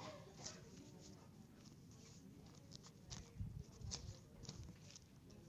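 Near-silent room tone with faint scattered clicks and soft knocks, a few of them close together about three to four seconds in.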